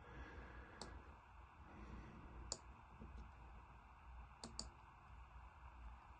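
A few sharp computer mouse clicks against faint room hiss, including a quick double click about four and a half seconds in.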